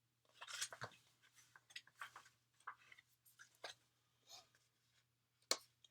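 Faint scattered clicks and light rustles, otherwise near silence: the pages of a picture book being handled and turned.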